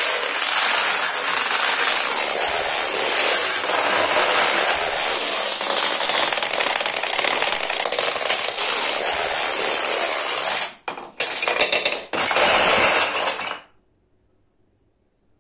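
Plastic dominoes toppling in a chain reaction: a dense, unbroken clatter of many pieces falling, with a few short gaps near the end before it stops abruptly.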